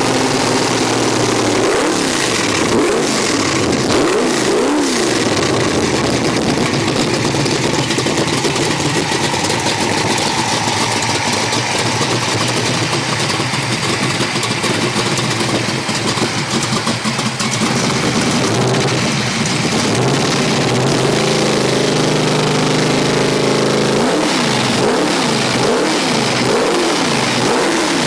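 572 cubic-inch Hemi V8 crate engine with two four-barrel carburetors, running on an engine stand through short headers and small mufflers. The throttle is blipped by hand in quick revs a few seconds in, then it settles to idle, and it is blipped again over the last few seconds.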